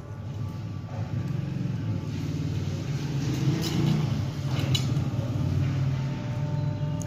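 A steady low rumble, with a few light taps and clicks about halfway through.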